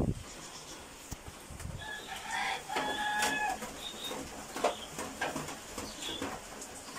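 A rooster crowing once, a flat drawn-out call about two seconds in, with faint clicks and knocks around it.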